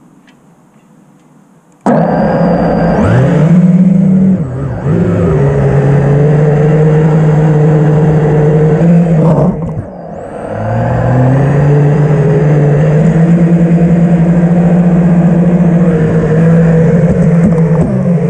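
FPV freestyle quadcopter's motors and propellers whining, starting suddenly about two seconds in. The pitch climbs and falls with the throttle. Around the middle it dips sharply and then winds back up.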